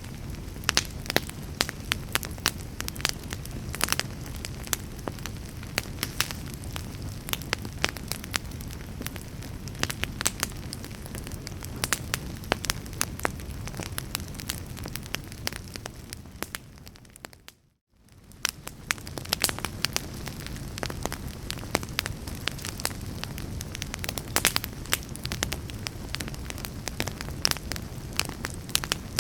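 Fire burning, with frequent sharp crackles and pops over a steady low rush. About two-thirds of the way through, the sound fades out to silence for a moment and fades back in.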